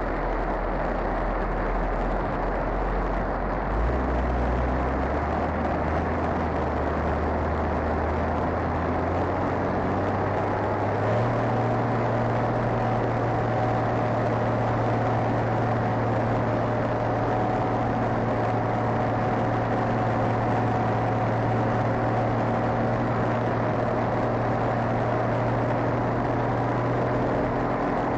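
A vehicle engine running close by. Its speed steps up a few times over the first ten seconds or so, then holds steady.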